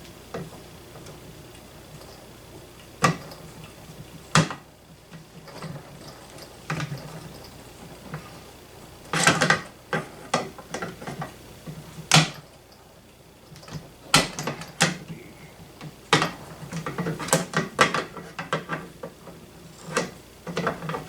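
Irregular metal clicks and clacks of a Model 95 .50 BMG rifle's bolt carrier being worked back and forth while it is fitted into its grooves, with a few louder knocks and quieter stretches between.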